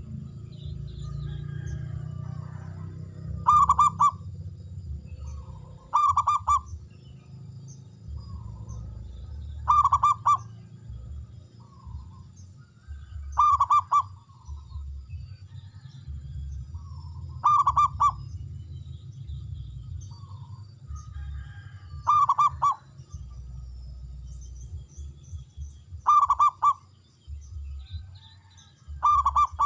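Zebra dove (perkutut) singing: eight loud bursts of quick stuttering coos, one about every four seconds, with softer coos between them. A low steady hum runs underneath.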